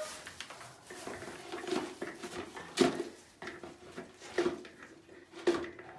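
A series of sharp knocks and clatters, the three loudest about three, four and a half and five and a half seconds in.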